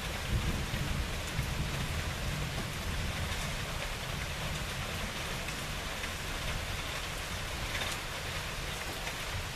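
Steady rain falling in a thunderstorm, an even hiss of drops with a low rumble underneath.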